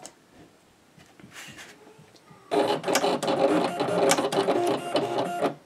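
Vinyl cutter running a quick test cut, its motors driving the blade carriage and rollers to cut a small triangle in vinyl. The motor sound starts suddenly about two and a half seconds in and runs for about three seconds before stopping.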